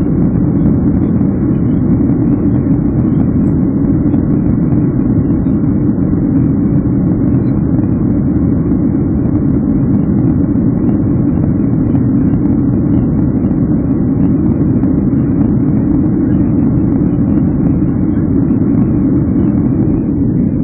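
Steady low roar inside the passenger cabin of an Airbus A321 in flight: engine and airflow noise.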